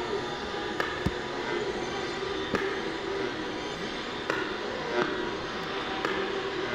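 Electronic sound installation: a steady hum with crackling static and a few sharp clicks. The source is a portable radio turning on a record turntable beside a bare light bulb.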